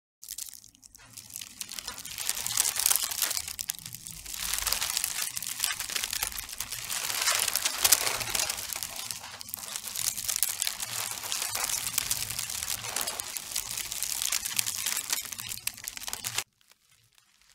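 A thin metallic foil sheet crinkling and rustling as it is handled: a dense crackle that swells and eases in waves, then cuts off abruptly near the end.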